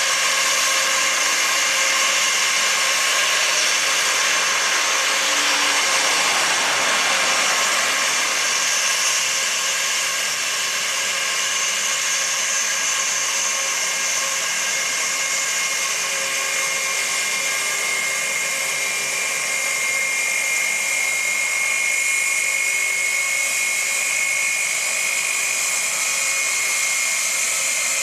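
Turbofan engines of an Airbus A320-family airliner taxiing past, giving a steady whine of several tones over a rush of air.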